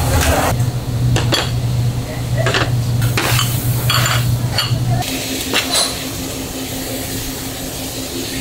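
Restaurant kitchen work: dishes, pans and utensils clinking and clattering in a string of separate knocks for about five seconds, over a steady low hum that shifts to a slightly higher steady tone partway through.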